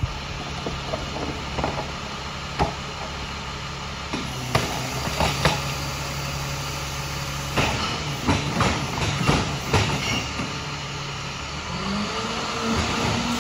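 International garbage truck's MaxxForce diesel engine idling steadily while a trash cart is dumped into the Labrie Expert side-loader: a run of knocks and bangs from the cart and falling trash, thickest a little past halfway. Near the end the engine speeds up and its pitch rises.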